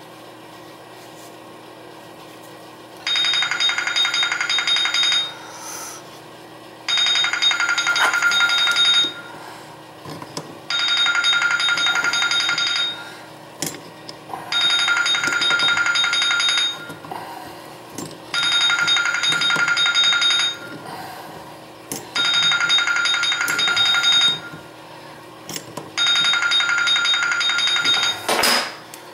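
A telephone ringing with an old-style bell ring: seven rings of about two seconds each, with gaps of about two seconds, starting about three seconds in. Faint knocks and handling sounds come between the rings.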